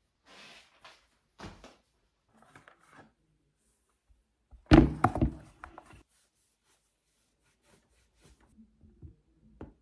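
A loud thunk just under five seconds in, rattling on for about a second, with small knocks and rustles of handling before and after it.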